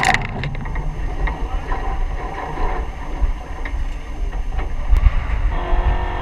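Low rumble with scattered mechanical clicks and rattling. About five and a half seconds in, a steady whine starts as the starter spins the dragster's supercharged aluminum 540 cubic-inch Keith Black engine over.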